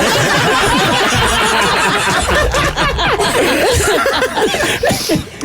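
A group of people laughing and chuckling together, many voices overlapping, loud throughout.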